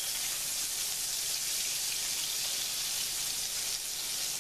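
Battered bacon strips frying in hot oil: a steady crackling sizzle.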